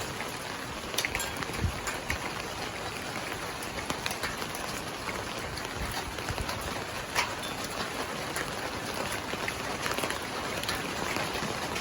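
Steady rain falling, an even hiss with many individual drops ticking sharply on nearby surfaces.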